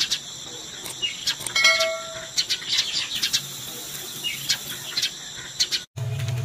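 Small birds chirping repeatedly in quick, high notes. Near the end the sound cuts off for an instant, then a steady low motor hum begins.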